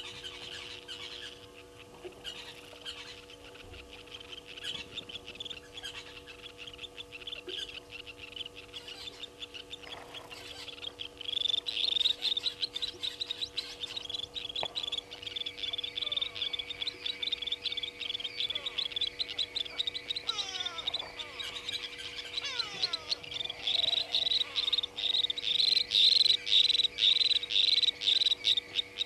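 A high, rapidly pulsing chirping chorus of small animals, growing louder about eleven seconds in and again near the end. A faint steady electrical hum runs underneath.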